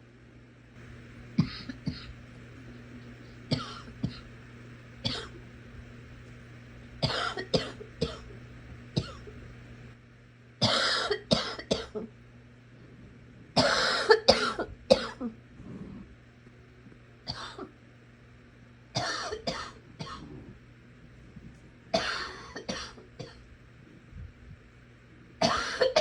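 A sick person coughing in repeated bouts, usually two to four quick coughs at a time, every few seconds.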